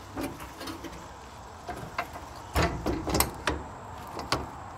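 Service-body compartment door on a work truck being swung shut and latched: a run of sharp clanks and clicks, loudest about two and a half and three seconds in, over a steady low rumble.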